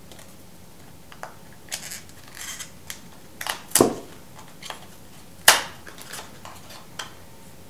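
Hands opening a small product box and its packaging: scattered clicks and short rustles, with two sharp snaps, the loudest about four and five and a half seconds in.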